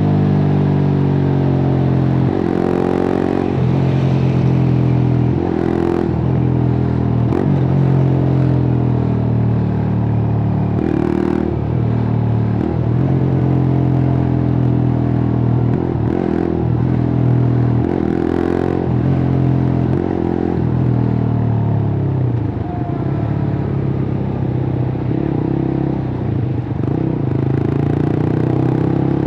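Suzuki GSX-R150's single-cylinder engine through a cut-open exhaust, running under way at fairly steady revs. Several short breaks where the pitch shifts interrupt the steady run, and it runs a little quieter and rougher near the end.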